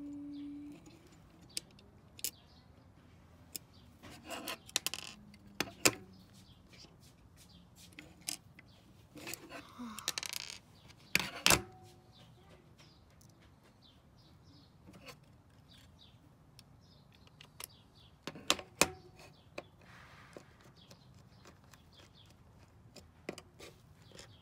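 Scattered small metallic clicks, taps and scrapes of small metal standoffs and a hand nut driver being handled and screwed onto a Raspberry Pi 4 board, with a few sharper clatters standing out.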